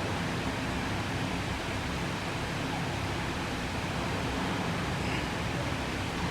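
Steady, even rushing noise with a low hum underneath and no distinct events, like a fan or ventilation running.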